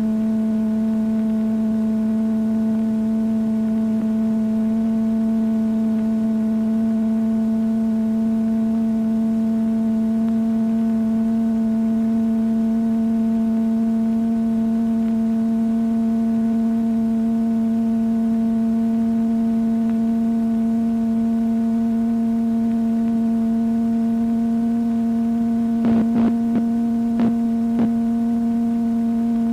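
Steady, mid-low electronic sine-wave tone with a few overtones, the film soundtrack's slowly rising sine-wave glissando, its pitch creeping upward almost imperceptibly. A few short clicks come near the end.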